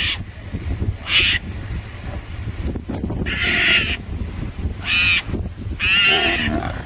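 A cornered mongoose giving repeated high-pitched defensive calls at a lioness: about five short calls roughly a second apart, the later ones longer with a wavering pitch, over a low background rumble.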